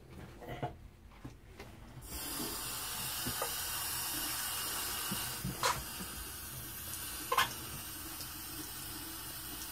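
Bathroom sink faucet turned on about two seconds in, its water then running steadily into the basin as a hand plays in the stream. Two short knocks come through over the running water.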